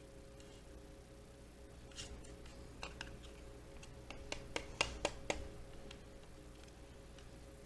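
A scattering of light clicks and taps, about ten in a few seconds, from the small plastic dust bin of a cheap robot vacuum being handled and opened, over a faint steady hum.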